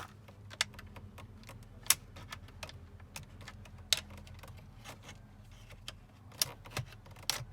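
Irregular sharp plastic clicks and small rattles from a BMW push start button unit being handled and its retaining clips worked, with a cluster of clicks near the end.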